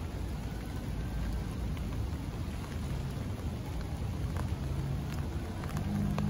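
Light rain falling, with scattered raindrops tapping on an umbrella propped over the camera. A low steady hum comes in near the end.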